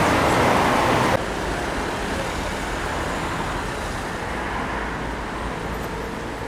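City street traffic noise, an even road-noise hiss with no distinct events. It drops abruptly to a quieter level about a second in.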